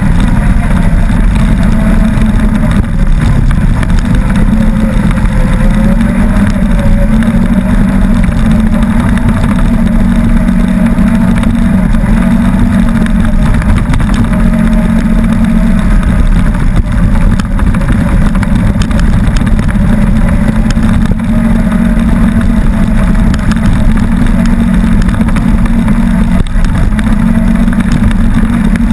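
Side-by-side UTV engine running steadily while driving along a gravel trail, its pitch rising and falling a little with the throttle, over rumbling road noise.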